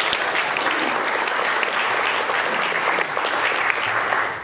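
Audience of seated diners applauding, a dense steady clapping that dies away near the end.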